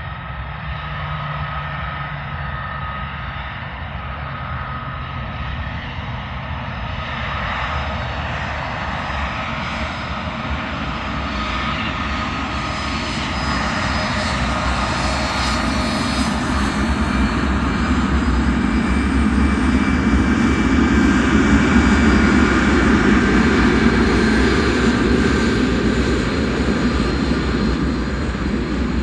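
Aeroplane flying overhead, a steady engine drone growing gradually louder as it approaches, loudest near the end.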